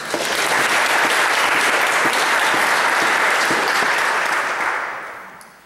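Church congregation applauding: a full round of clapping that holds steady for about four seconds, then dies away near the end.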